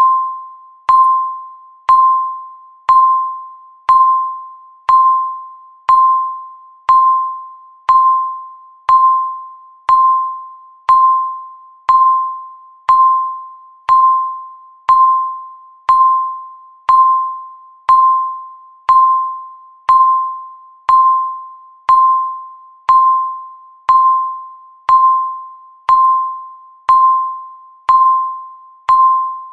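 Countdown timer beeping once a second: each beep is a short, high tone at one steady pitch that starts sharply and fades away.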